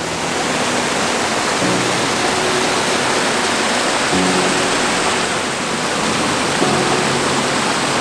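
Small stream spilling over rocks in a little waterfall: a steady rush of water, with soft background music under it.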